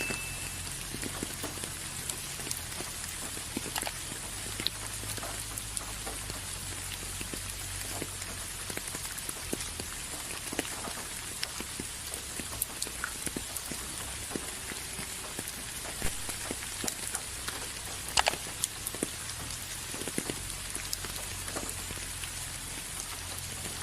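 Steady rain falling, with scattered louder drops tapping on a surface; a few sharper taps stand out, the loudest about 18 seconds in.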